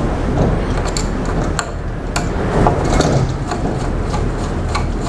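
Small, scattered metal clicks and taps as a tiny screw is set by hand into a motorcycle carburettor body and a screwdriver is fitted to it, over a steady low hum.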